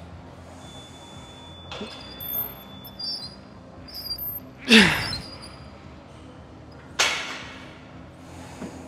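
Weight-training sounds in a gym: a loud strained breath or grunt of effort about halfway through, falling in pitch, then about two seconds later a sharp clank of gym equipment that rings on briefly, with faint squeaks in the background.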